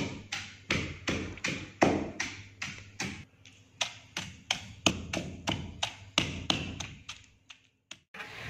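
Wooden pestle pounding fresh mint, green chilies and coriander in a mortar to make chutney: a steady run of dull knocks, about three a second, that stops just before the end.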